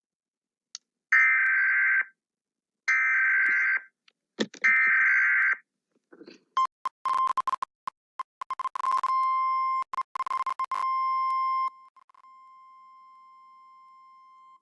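Emergency Alert System SAME header: three roughly one-second bursts of screechy digital data. Then the single-tone weather-radio attention signal, chopped up and stuttering with clicks for about five seconds, and after that steady and much quieter.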